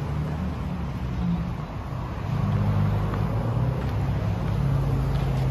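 Street traffic with a steady low engine drone, swelling a little about two seconds in.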